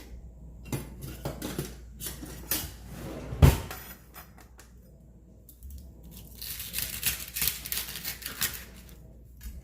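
Kitchen knife chopping the woody ends off asparagus stalks on a cutting board: scattered cuts, one heavy knock of the blade on the board about three and a half seconds in, then a quick run of cuts near the end.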